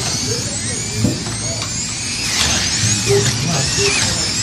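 Several slot cars' small electric motors whining around the track, their pitches rising and falling as they speed up on the straights and brake into the turns, with a mechanical clatter from the cars running in the slots.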